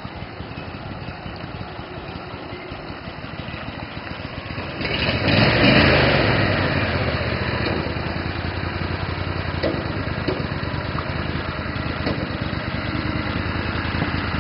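A 35-horsepower boat motor idling, then the throttle is bumped about five seconds in and the engine speeds up and runs on steadily at low speed, pushing the light 14-foot boat along.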